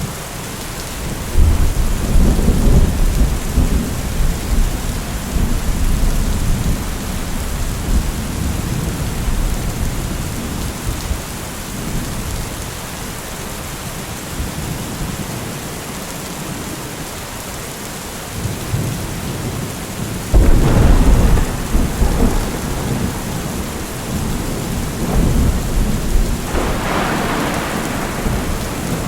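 Thunderstorm: steady rain with thunder rumbling, a long deep roll starting about a second in, and a sharper clap with a rumble about two-thirds of the way through, followed by another swell near the end.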